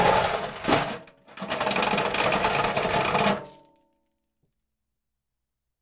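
Metal chain dragged, its links clinking and rattling: a short pull of about a second, then a longer drag of about two seconds, with a brief ringing as it stops.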